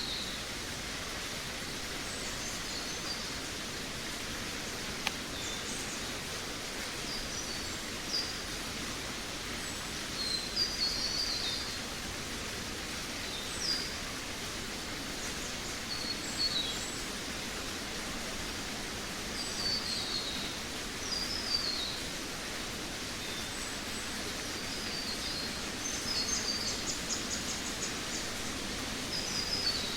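Forest ambience: a steady rushing hiss with songbirds singing short, high, descending chirping phrases every few seconds, more of them a little after ten seconds in, around twenty seconds and near the end.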